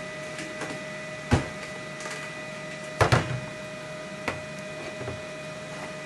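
Steady hum from equipment at a honey-bottling filler, with sharp knocks of plastic honey bottles being handled and set down on the table: one about a second in, a louder cluster near the middle, and one more shortly after.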